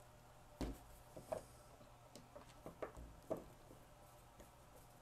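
Faint, scattered clicks and ticks of a small machine screw being handled and threaded into the bolt-cutting holes of a pair of cutters, the sharpest about two-thirds of a second in.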